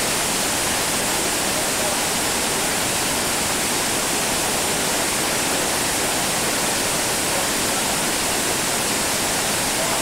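Steady rush of whitewater pouring over a bedrock drop on a creek, an even, unbroken noise.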